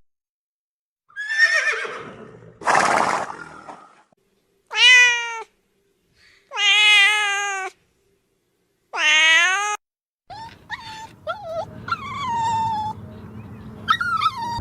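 Domestic cats meowing: a series of separate calls, each half a second to a second long, with two rougher, noisier calls near the start and a run of shorter, quicker mews over the last few seconds.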